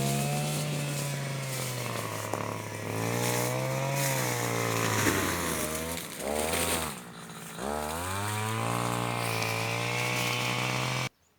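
Husqvarna 143R-II brushcutter's two-stroke engine running at cutting speed with a nylon line head. Its pitch rises and falls as the throttle is worked, dropping low twice around the middle. The sound cuts off suddenly near the end.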